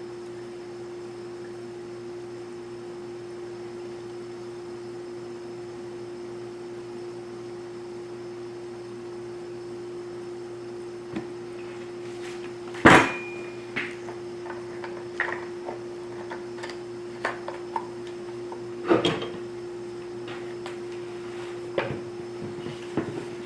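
A steady background hum, then about thirteen seconds in one loud hard knock as the plastic fuel can is pulled from the chainsaw's filler and set down on the wooden workbench. Scattered light clicks and knocks follow as the plastic filler caps and the saw are handled, with another knock about nineteen seconds in.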